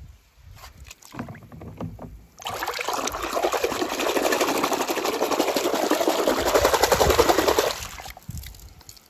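A hand splashing and churning foamy water in a plastic tub for about five seconds, starting a couple of seconds in and fading near the end. It is preceded by a few light clicks as plastic toy cars are handled in a basin.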